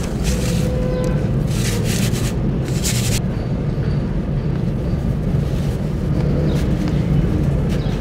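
Fine dry sand showering down onto wet sand blocks in a tub of water, in several hissing bursts over the first three seconds. After that comes softer crumbling and squishing of wet sand by hand in the water, over a steady low rumble.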